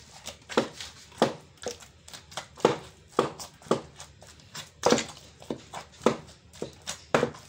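Wooden pestle pounding partly cooked, fermented cassava fufu (akpu) in a mortar: repeated thuds, about two strikes a second. This is the first pounding stage, working the lumps smooth before the second cooking.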